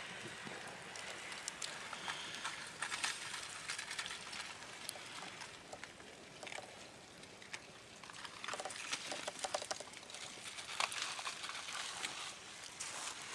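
Blocky lava flow advancing: a continuous irregular crackle and clatter of glowing lava blocks tumbling and grinding against each other, with many sharp clinks.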